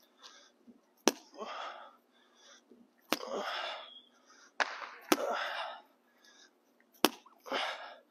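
Weighted plyo balls thrown hard into a concrete wall: four sharp smacks about two seconds apart, each followed by a short breathy rush of noise.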